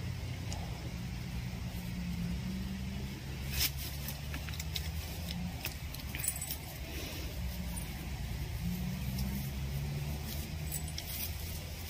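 Scattered small clicks and taps as PVC water pipe and fittings are handled and joined, over a steady low hum.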